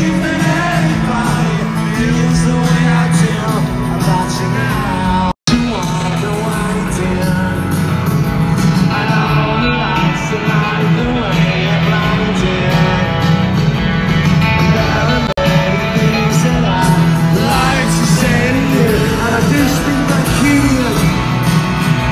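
Live rock band playing with singing, heard across a large arena. The sound cuts out for an instant about five seconds in.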